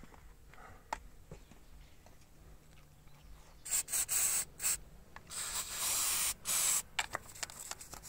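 Aerosol brake cleaner sprayed through its straw onto the motorcycle engine: a few short hisses about four seconds in, then one longer hiss of about a second and a half. A few light clicks follow near the end.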